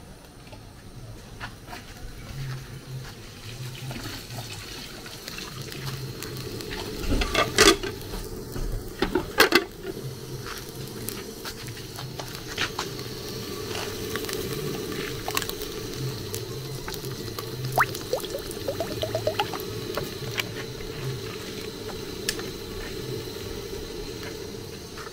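Liquid sloshing and bubbling while soup is cooked, with a cluster of sharp metal clanks from pots or utensils about seven to ten seconds in and lighter clinks later.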